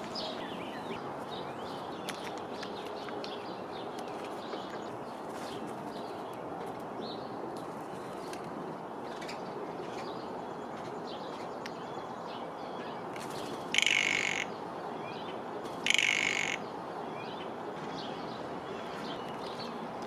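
Blue jay giving two harsh calls, each about half a second long and two seconds apart, over a steady outdoor hiss with faint chirps from small birds.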